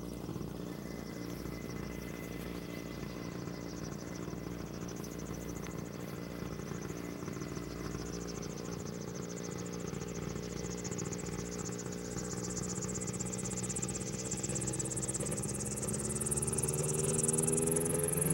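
Yamaha RMAX unmanned helicopter's two-stroke engine and rotors running steadily on the ground, then revving up over the last several seconds, its pitch rising and getting louder as the rotor speeds up.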